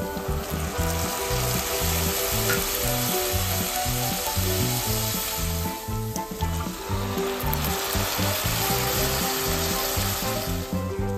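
Minced meat with diced onion, carrot and celery sizzling hard in a frying pan as white wine is cooked off. The sizzle thins briefly about six seconds in as tomato sauce is poured in, then picks up again.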